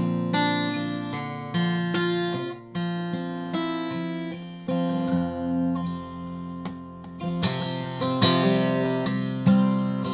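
Solo acoustic guitar playing a slow instrumental passage, chords strummed and picked and left to ring between attacks.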